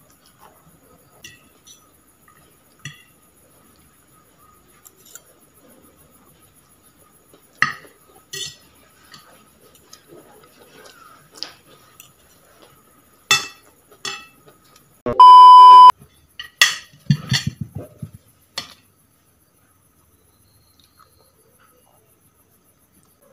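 Metal spoon and fork clinking and scraping on a ceramic plate during eating, in scattered sharp clicks. About two-thirds through, a loud, pure electronic beep sounds for under a second.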